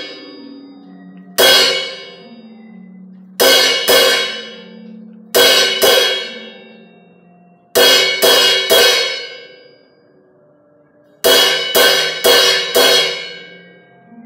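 Suspended cymbal struck with a wooden drumstick in short rhythmic groups: a single hit, two quick pairs, then runs of about four and five strokes, each one ringing out and decaying.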